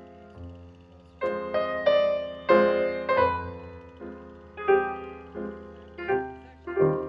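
Background piano music: notes and chords struck one after another, each ringing out and fading.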